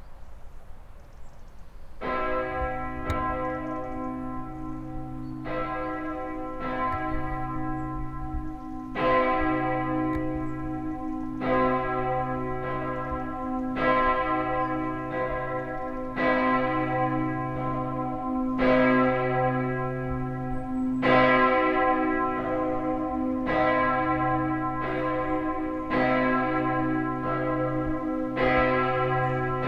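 Abbey church bell 'Hl. Benedikt', a single large bell tuned to c1, 2100 kg, cast by Karl Hamm in 1950, swinging and ringing. It starts about two seconds in, with strokes growing louder and settling to about one every 1.2 s, and a low hum carries on between them. This is the Friday ringing at 3 pm for the hour of Jesus' death.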